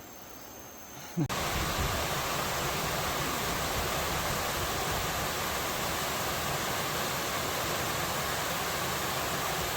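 Steady rush of falling water from a tiered waterfall, coming in abruptly about a second in after a faint quiet hiss.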